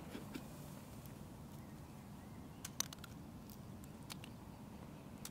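Faint outdoor forest ambience with a steady low rumble and a few scattered small sharp clicks, the sharpest about three seconds in.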